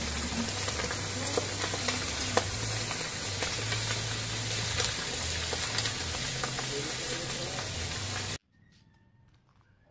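Pieces of pig's head frying in hot oil in a wok over a wood fire: a steady sizzle with scattered pops. It cuts off suddenly about eight seconds in.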